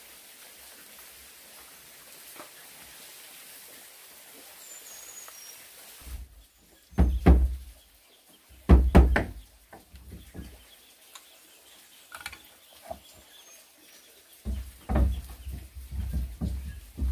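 Heavy wooden knocks and thumps: two pairs of loud strikes about seven and nine seconds in, then a run of knocks near the end. Before them there is a quiet outdoor background with a few faint bird chirps.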